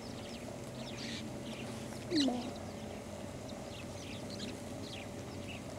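Small birds chirping and calling on and off, with one louder, lower call about two seconds in.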